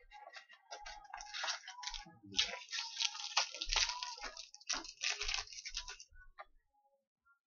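Trading-card pack wrappers crinkling and tearing as packs are ripped open: a rapid, irregular run of crackly rustles that stops about six seconds in.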